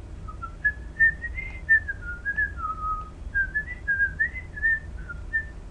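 A person whistling a tune, a string of short notes that rise and fall.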